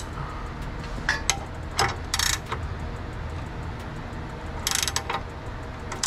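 Hand ratchet wrench clicking in about four short bursts as a bolt is turned.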